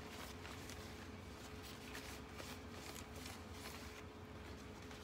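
Repeated soft rustling strokes of an oiled cloth rubbing over ficus leaves, over a faint steady hum.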